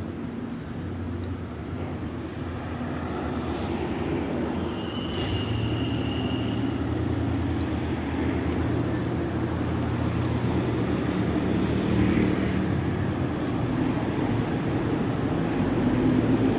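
City street traffic: cars driving past with a steady engine and tyre rumble that slowly grows louder. A short high squeal comes through about five seconds in.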